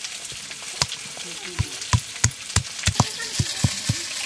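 Stone roller knocking down on a flat grinding stone (sil-nora) as ginger, garlic and green chillies are crushed: about ten dull knocks, roughly three a second, starting about a second in. Under it, a steady sizzle of fish frying in mustard oil.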